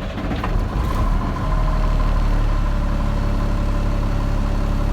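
Freightliner truck's diesel engine idling just after a start, building up over the first second and a half and then running steadily.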